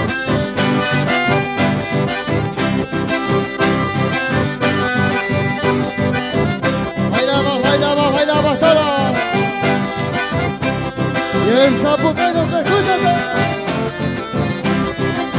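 Live folk band of two button accordions and an acoustic guitar playing a lively dance tune with a steady, even beat.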